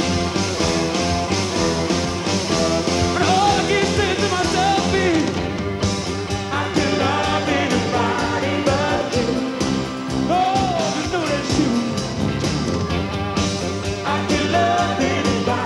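Rock band playing live with drums and bass, a lead line bending and sliding in pitch over the top, in a passage without lyrics.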